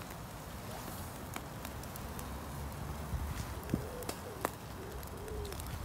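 A dove cooing, a few short low notes in the second half, over a steady low rumble with a few faint clicks.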